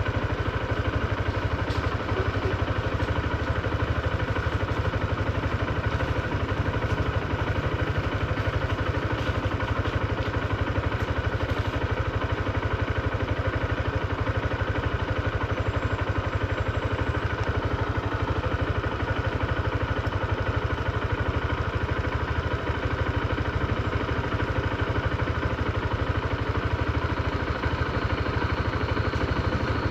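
2024 Honda CB125F's 124 cc air-cooled single-cylinder engine idling steadily, the note holding flat with no revving. The engine is new and still being run in.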